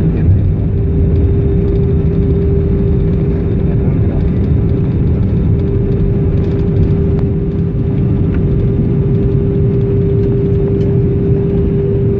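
Airliner cabin noise while taxiing: the jet engines running at low power make a steady low rumble, with a constant hum running through it.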